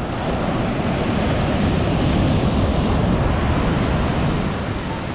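Ocean surf breaking on a sandy beach: the rush of a breaking wave builds to a peak around the middle, then eases off.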